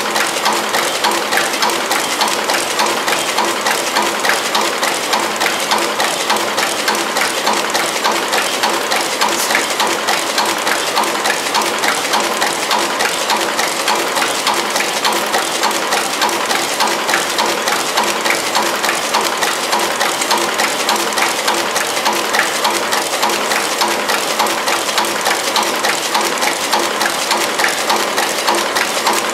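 DXDC15A coffee bag packing machine running at production speed: a steady, fast mechanical clatter of many small clicks and rattles from its moving parts.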